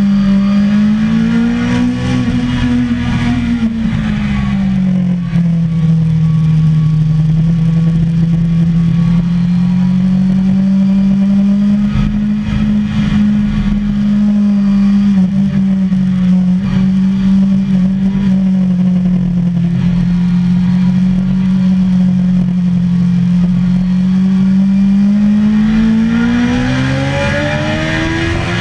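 Suzuki sport motorcycle engine heard onboard at speed on a racetrack, running hard at high revs. The pitch rises and falls through the corners early on, holds fairly steady for a long stretch, then climbs steadily near the end as the bike accelerates.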